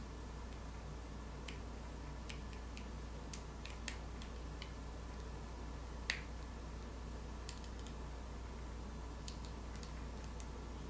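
Scattered, irregular small clicks from gloved hands handling a metal wristwatch case, with one sharper click about six seconds in, over a steady low hum.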